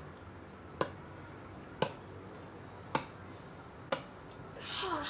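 Four sharp clicks, evenly spaced about a second apart, then near the end a short call that falls steeply in pitch.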